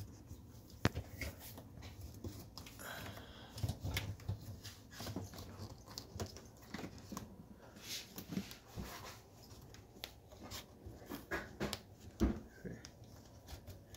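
Irregular clicks, taps and rubbing from a new rubber door gasket being pressed by hand into the channel around a Bosch dishwasher's door opening.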